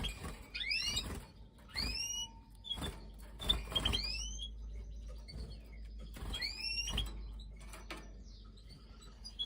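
Major goldfinches (European goldfinch, Siberian form) giving short rising chirp calls, about five in all and spaced one to two seconds apart, mixed with scattered sharp clicks and knocks.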